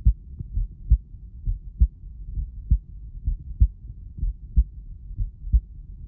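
Recorded heartbeat: a steady rhythm of deep thumps, about one beat every 0.9 seconds (roughly 65 a minute), with a low rumble between the beats.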